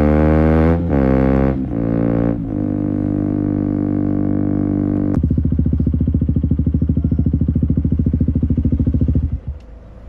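KTM Duke 125's single-cylinder engine through an Akrapovic exhaust with a GPR decat link, accelerating with three quick upshifts in the first couple of seconds, then holding steady revs. About halfway the throttle closes and the exhaust goes to a rapid pulsing burble on the overrun, which falls away about a second before the end.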